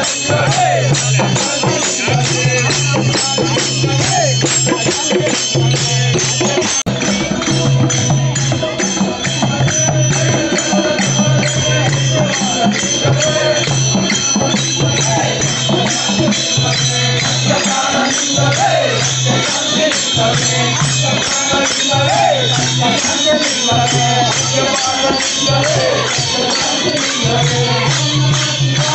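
A group singing a devotional bhajan together, with small hand cymbals clashing in a steady, fast rhythm and hand drums beating under the voices.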